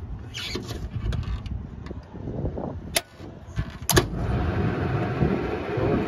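York rooftop HVAC unit being powered on for cooling: two sharp clicks about a second apart over a steady low rumble, after which a steady whooshing hum comes up.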